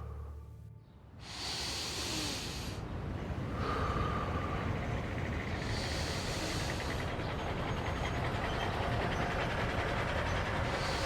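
A steady low rushing rumble, with a hiss that swells and fades about every four seconds.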